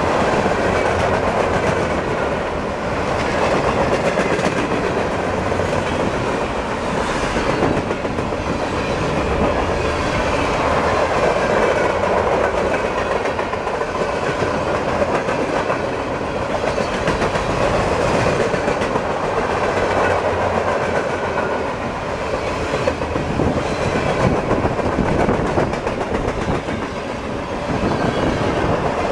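Empty freight cars of a pipe train rolling past, their wheels running on the rails in a steady, unbroken noise with faint wavering ringing tones above it.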